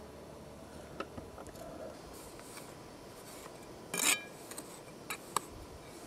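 A small hand trowel scraping and scratching in sand, with a few short clinks; the loudest is a scrape with a brief metallic ring about four seconds in.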